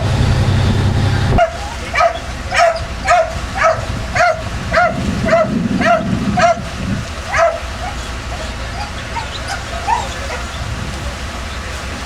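An animal giving a series of short yelping calls, about two a second, each falling in pitch, that weaken and trail off after about six seconds. A steady low hum is present at the start and drops away about a second and a half in.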